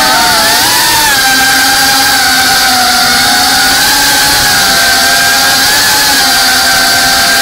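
GEPRC Cinelog 35 cinewhoop's brushless motors and ducted propellers whining steadily in flight, heard close up from the drone itself. The pitch wavers about a second in as the throttle changes, then holds nearly level.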